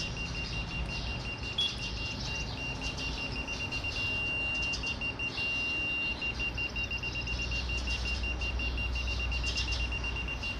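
Digital level's audible level indicator beeping rapidly at a high pitch. It holds a steady tone twice for about a second each, the signal that it reads level. A low hum grows from about six seconds in as the Kingsong S22 electric unicycle is switched on and its hub motor holds the wheel upright.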